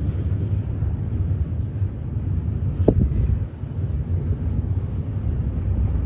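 Double-stack container train rolling past, a steady low rumble of wheels on rail, with one sharp clank about halfway through.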